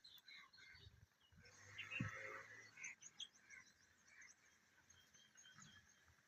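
Faint outdoor ambience with distant birds chirping.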